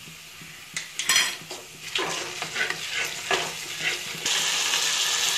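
Wooden spatula stirring and scraping spices frying in oil in a kadai, the strokes starting about a second in. Near the end a loud sizzle starts suddenly as wet onion paste goes into the hot oil.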